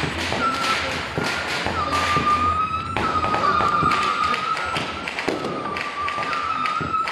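Small fireworks going off, a dense run of pops and bangs throughout. Over them a high, steady whistle starts over and over, each lasting about a second.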